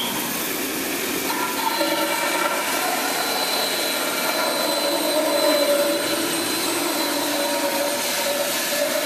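Bandsaw running and cutting lengthwise through a maple propeller blank, trimming it along the traced pattern. The steady noise of the saw takes on a held, singing tone about a second in, as the blade bites into the wood, and stays steady from then on.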